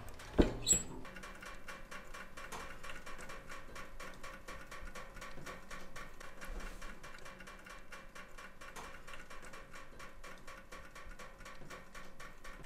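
Wood stove door clunking shut about half a second in, followed by faint, rapid, evenly spaced ticking.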